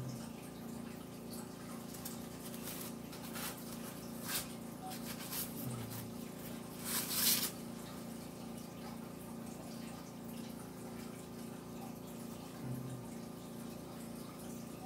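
Soft handling noises: a few brief rustles and scrapes, the loudest about seven seconds in, as a gloved hand spreads wet acrylic paint over a canvas on plastic sheeting. A steady low hum runs underneath.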